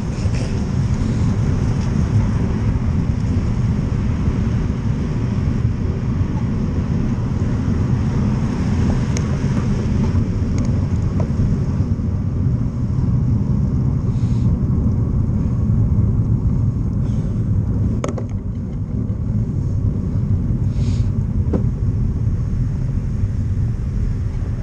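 Wind buffeting a bicycle-mounted camera's microphone while riding on a wet road: a steady low rumble of wind and rolling noise, with road traffic mixed in. A couple of sharp clicks come about three-quarters of the way through.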